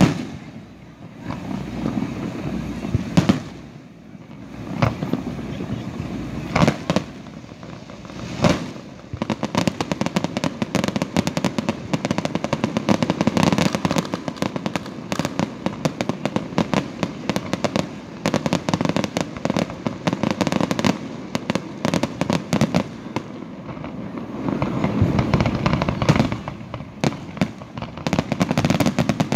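Fireworks display: a few separate shell bursts in the first several seconds, then from about nine seconds in a dense, continuous crackle of many small reports over a steady rumble, swelling again near the end.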